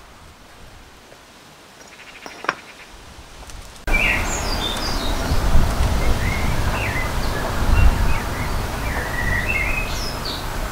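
Wind buffeting the microphone with small birds chirping, starting suddenly about four seconds in; before that, a quiet outdoor background with a single knock.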